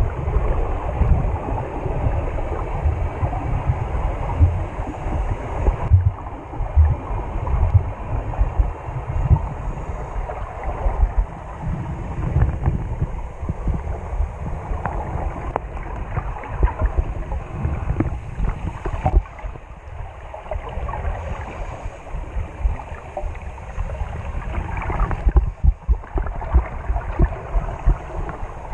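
Muffled underwater noise from a submerged camera: water sloshing and rumbling against the camera, with many irregular low knocks and bumps.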